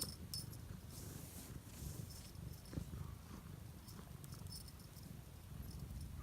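Domestic cat purring as a steady low rumble, with faint scattered light ticks and rustles over it.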